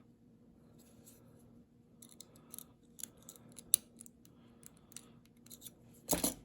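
Lock pick and tension wrench working the pins of a Cobra 8200 padlock: faint, scattered small clicks and scrapes of metal on metal, with a louder brief rattle about six seconds in.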